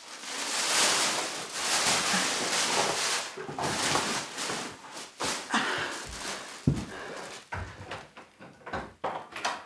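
Plastic rubbish bag rustling and crinkling as it is handled, followed by scattered knocks, a heavy thump and a few clicks of a door handle near the end.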